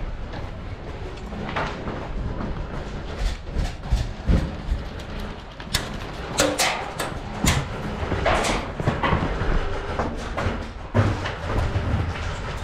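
Airsoft gunfire in a game: a run of sharp clacks about halfway through, over steady rumbling noise from movement and wind on the microphone.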